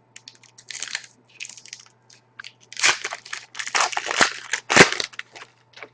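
Foil trading-card pack wrapper being torn open and crinkled, with cards rustling, in irregular crackly bursts that are busiest in the second half.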